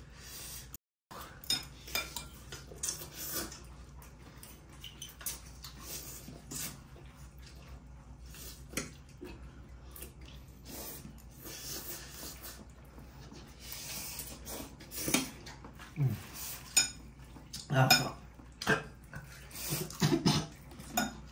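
Forks and spoons clinking and scraping against ceramic bowls and plates as people eat noodles, in scattered short clicks that come thicker and louder toward the end.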